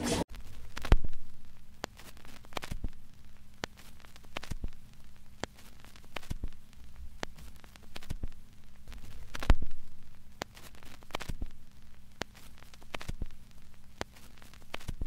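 Scattered crackles and clicks over a steady low hum, with two louder pops about a second in and again about nine and a half seconds in.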